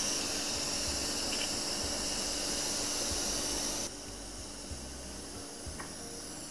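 Steady hiss of air from an electrostatic powder coating gun spraying inside a hobby spray booth, over the booth's extractor fan. About four seconds in it drops suddenly to a quieter hiss, with a few faint clicks.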